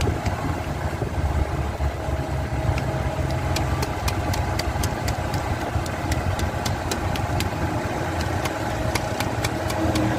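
Car engine idling with a steady hum while refrigerant from a can flows into the air-conditioning system, with light ticks scattered through it.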